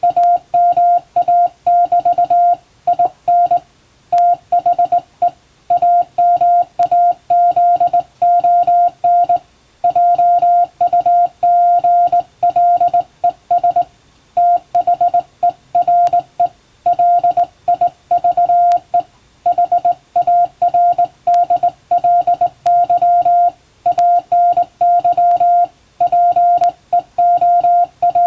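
Morse code sent by hand on a straight key: a steady tone of about 700 Hz keyed on and off in dots and dashes, with short gaps between letters and longer pauses between words.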